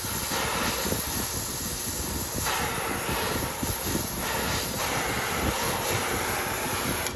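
Electric arc welding on cast iron: a steady crackling arc that stops abruptly at the end.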